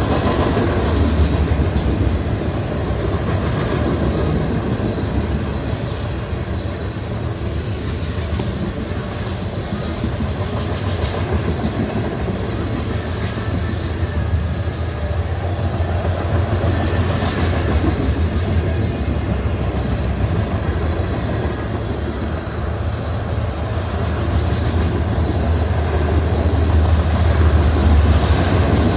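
CSX freight train rolling past: a continuous noise of steel wheels on rail over a steady low hum, easing off a little midway and building again near the end.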